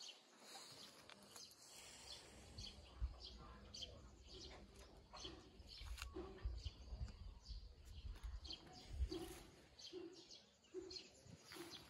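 Faint birds chirping here and there in the background, with a low rumble on and off.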